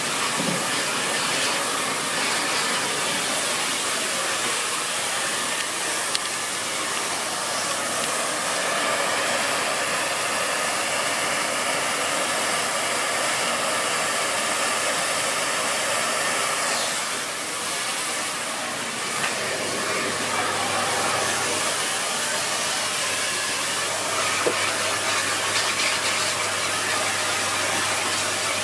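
Dyson Big Ball Animal (CY23) cylinder vacuum cleaner running steadily, with a brief dip in the sound about two-thirds of the way through.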